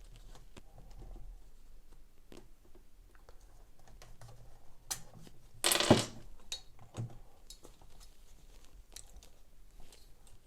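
Light plastic clicks and scraping of a netbook keyboard being pried up with a small pointed tool, with one sharp, louder snap about six seconds in.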